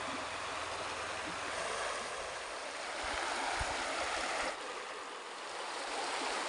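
Water of a shallow hill stream running over and around rocks: a steady rushing hiss that swells in the middle, drops off suddenly, then rises again near the end.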